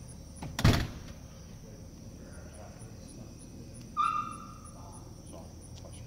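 Federal Signal STH-10 siren coasting down after its alert, a faint low steady drone from the slowly spinning rotor, with insects ticking steadily. A sharp thump comes under a second in, and a short high tone about four seconds in.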